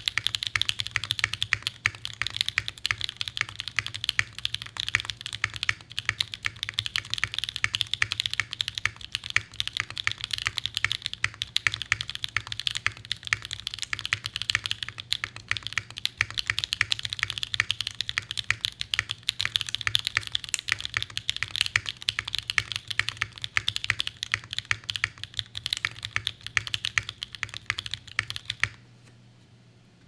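Steady, fast typing on a Mode Envoy keyboard (polycarbonate case, carbon-fibre plate, no foam) with stock factory-lubed Gateron Summertime switches and GMK Foundation keycaps: a dense stream of key clacks and bottom-outs, with no spring ping or crunch to the owner's ear. The typing stops near the end.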